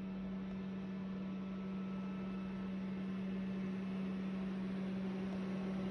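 A steady low hum with an even rushing noise beneath it, growing slightly louder toward the end, from a machine running without pause.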